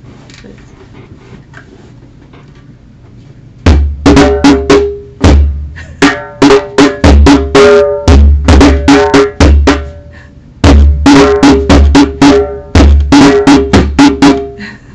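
Djembe played by hand: a loud, rhythmic run of deep bass strokes and higher ringing tone strokes, starting about four seconds in, with a short break near the middle.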